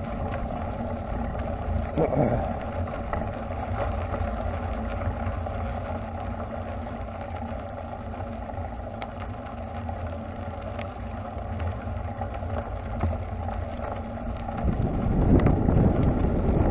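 Bicycle rolling along a gravel path, with a steady rumble of the tyres and wind on the microphone. It gets louder and rougher near the end.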